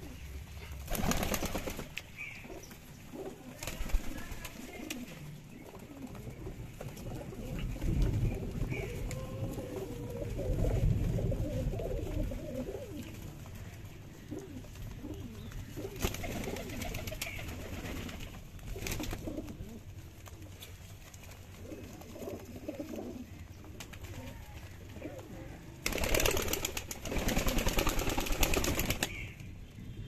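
A flock of domestic pigeons cooing, with bursts of wing flapping: a short flurry about a second in, two more in the middle, and a longer, louder flurry near the end.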